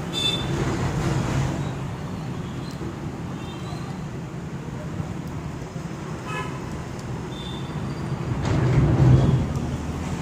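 Road traffic noise with two short vehicle horn toots, one at the start and one about six seconds in, and a vehicle passing louder near the end.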